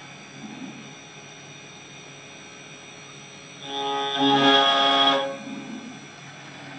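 Desktop CNC engraving machine carving a metal workpiece: a steady running noise, with a louder pitched whine lasting about a second and a half a little past the middle.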